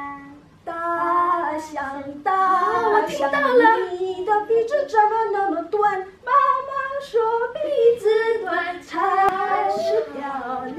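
Women's voices singing a song without instrumental accompaniment, in held, gliding phrases with short breaks between them.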